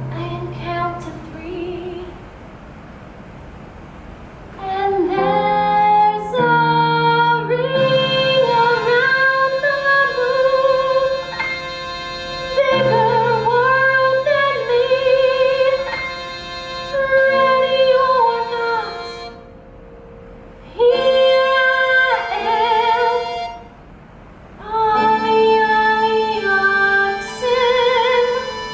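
A woman singing a slow solo ballad with vibrato over keyboard accompaniment. The voice is soft for the first few seconds, then comes in strongly about five seconds in, with two short breaks between phrases near the end.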